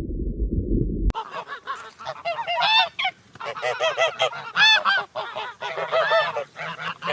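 A flock of geese honking: many overlapping calls in quick succession. They begin about a second in, after a low rumbling noise that cuts off abruptly.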